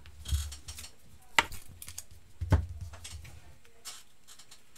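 Hands handling trading cards and a plastic-wrapped card pack on a tabletop: three knocks about a second apart, each with a low thud, and crinkling of the wrapper between them, then a few lighter ticks.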